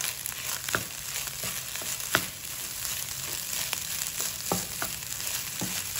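Garlic egg fried rice sizzling in a hot pan as it is stirred and tossed with a wooden spatula. A steady hiss runs under a few sharp taps of the spatula against the pan, the loudest about two seconds in.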